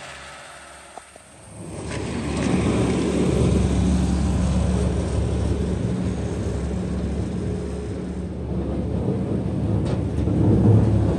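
Bobcat skid-steer loader's diesel engine running steadily as it pushes up feed along the bunk. It is quieter for the first two seconds, jumps much louder about two seconds in, and grows a little louder again near the end as the loader comes closer.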